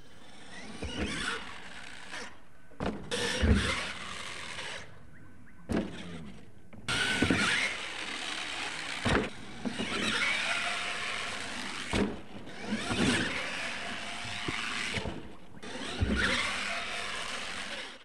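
R/C monster truck driving hard on a dirt course, its motor whining up and down in pitch with the throttle over the hiss of the tyres on dirt. Several sharp thumps as it lands jumps, the loudest about three and a half seconds in and near the end.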